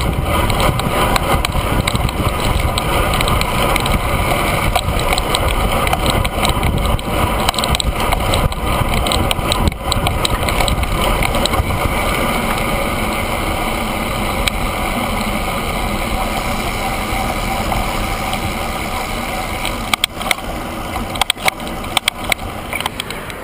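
Wind rushing over a handlebar-mounted camera's microphone on a road bike moving at speed, with tyre noise on asphalt. Near the end the rush eases off as the bike slows, and a few sharp clicks come through.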